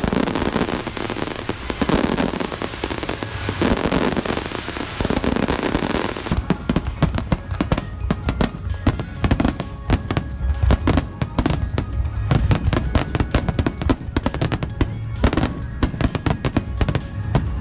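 Aerial fireworks exploding in a dense barrage: deep booms and rumble for the first several seconds, then a rapid crackle of sharp pops, several a second, from about six seconds in.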